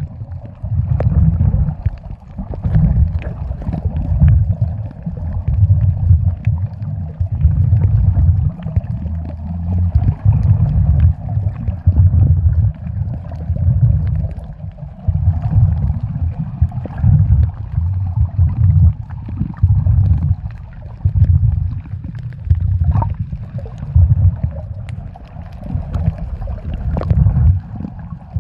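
Muffled low rumble of water moving over a microphone held underwater, rising and falling in irregular surges about once a second, with faint scattered clicks.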